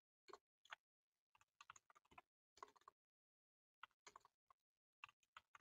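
Faint computer keyboard typing: short bursts of keystrokes with pauses of silence between them.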